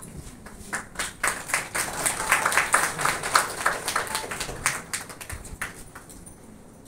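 A small group of people clapping: separate hand claps that thicken into applause over the first two seconds, then thin out and stop near the end.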